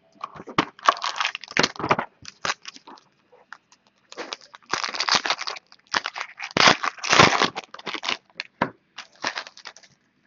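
Foil wrapper of a trading-card pack crinkling and tearing as it is ripped open by hand, in irregular crackly bursts with a short lull about three seconds in.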